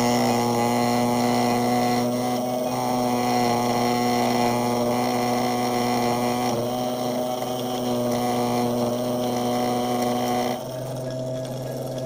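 A steady hum with a fixed pitch and several overtones, cutting off abruptly near the end.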